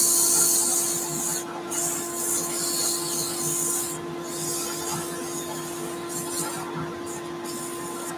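150-grit abrasive paper held against a small wooden workpiece spinning on a wood lathe: a hissing rasp of sanding that comes and goes, breaking off briefly a few times, over the lathe motor's steady hum.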